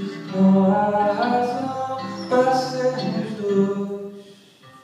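A man sings long held notes over acoustic guitar in a live solo performance. The singing dies away near the end.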